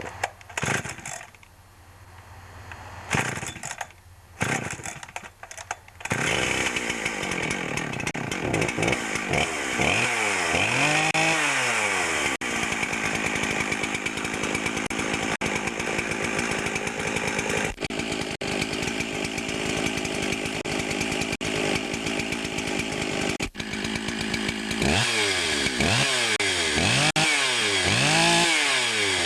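Husqvarna 372 XP two-stroke chainsaw being pull-started: a few short bursts, then the engine catches about six seconds in and keeps running. It is revved in quick rising-and-falling blips twice, once a few seconds after starting and several times near the end. It runs and idles properly now that a cracked carburetor-to-crankcase impulse line, which had been making it run lean, has been replaced.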